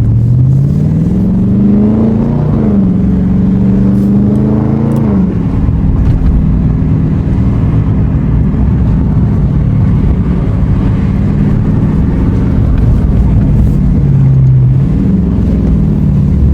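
2021 Dodge Charger Scat Pack's 6.4-litre 392 HEMI V8 with a mid-muffler delete, accelerating with rising pitch for about two seconds, dropping as it shifts up, then easing off about five seconds in to a steady low exhaust drone while cruising.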